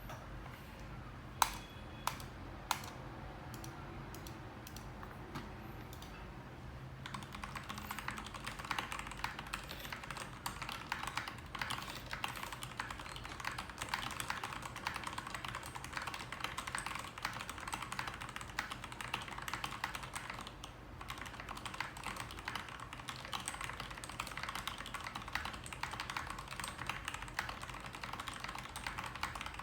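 Keycool KC84 mechanical keyboard with lubed Gateron Black linear switches and PBT doubleshot keycaps being typed on. A few separate keystrokes come first, then fast continuous typing from about seven seconds in, with a brief pause about two-thirds of the way through.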